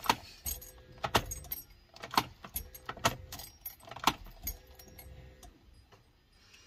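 Sharp clicks about once a second, with a faint hum in three short stretches between them, from a Skoda Superb's electrics as it is tried for a start on a flat battery. The clicks fade out near the end.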